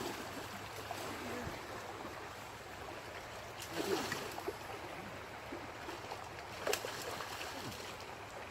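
River water flowing and rushing steadily, with a couple of brief sharp clicks or splashes about four and seven seconds in.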